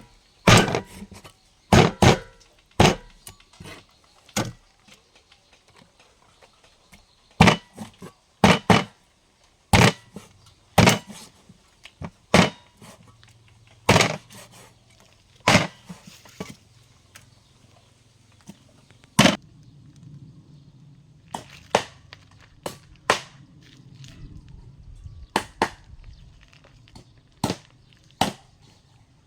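A kitchen knife chopping on a wooden cutting board: single sharp strikes at an uneven pace, some in quick pairs, with short pauses between.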